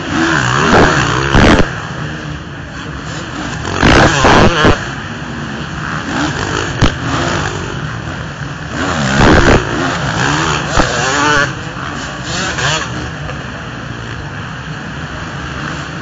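Motocross bikes revving hard as they pass one after another, with loud surges in engine pitch near the start, about four seconds in and about nine seconds in, over the steady drone of other bikes on the track.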